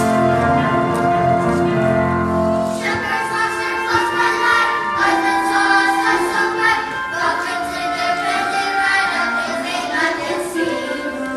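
Music: sustained instrumental accompaniment, joined about three seconds in by a choir singing, with children's voices among them.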